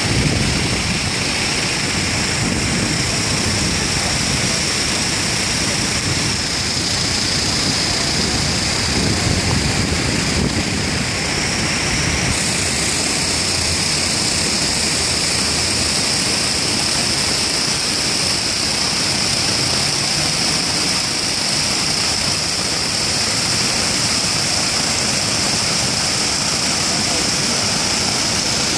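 Steady rushing of water spilling over the rim of a large plaza fountain into its basin.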